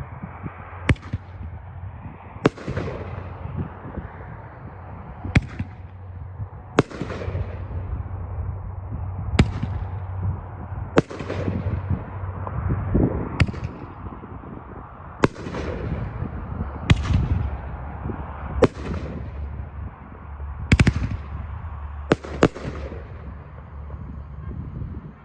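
A 500-gram fireworks cake firing its sun ring shots in turn: a sharp bang every one and a half to two and a half seconds, each trailing off over about a second, with two bangs in quick succession near the end, over a steady low rumble.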